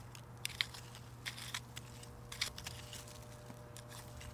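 Small hand rake and gloved hands scratching through loose dry soil while digging up Chinese artichoke tubers, with irregular crunches and clicks.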